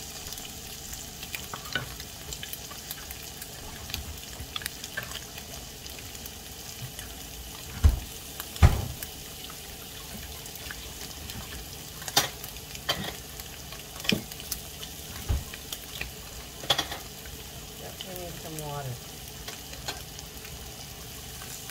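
Tofu cubes sizzling steadily in a nonstick frying pan while a wooden spoon stirs them, knocking against the pan several times. The two loudest knocks come about eight seconds in.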